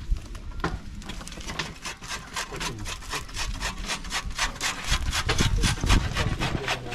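Rapid rhythmic scraping, several strokes a second, growing louder toward the end.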